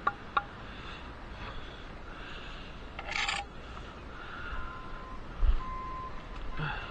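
Bricklaying hand-tool sounds: a trowel scraping against mortar and brick, loudest in one short scrape about three seconds in, with a low thump a little later. Two short steady beeps sound in the second half.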